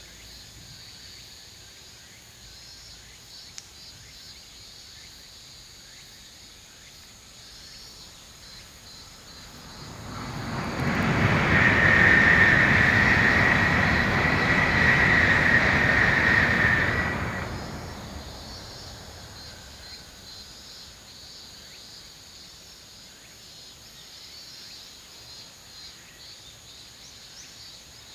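Tokaido Shinkansen train passing at speed on a viaduct: a rush of noise that swells about ten seconds in, stays loud for about six seconds with a steady high whine, and fades away over a couple of seconds.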